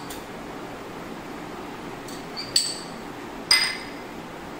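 A metal spoon clinking against small glass bowls while ingredients are scraped out: two sharp, ringing clinks about a second apart, the first just after a fainter tap.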